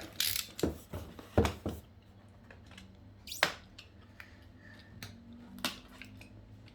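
Scattered sharp clicks and taps as the seal on a laptop's cardboard box is broken and the box is handled, a cluster in the first two seconds and two more spaced out later.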